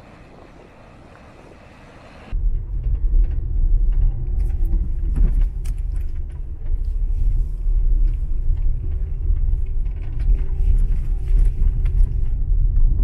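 A softer even hiss, then a sudden cut about two seconds in to a loud, steady low rumble like a vehicle driving, with scattered light rattles and clicks over it.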